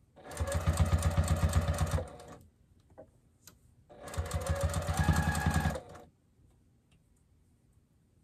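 Juki sewing machine stitching through layers of t-shirt knit in two short runs of about two seconds each, the needle going at a rapid even rhythm. The runs are split by a pause with a small click, and the machine stops about six seconds in.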